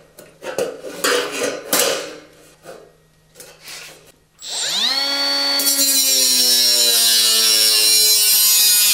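Compact cordless angle grinder with a cut-off disc spinning up about four and a half seconds in with a quickly rising whine, then cutting through metal trunking with a loud, steady harsh hiss over the motor's whine, its pitch sagging slightly under the load. Before it starts there are short scrapes and knocks as the trunking is marked and handled.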